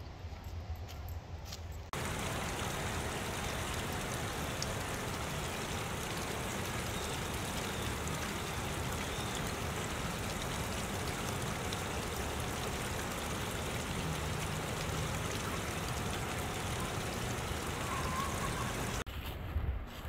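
Water splashing steadily down a small stacked-rock waterfall into a shallow stream. It starts abruptly about two seconds in and cuts off just before the end.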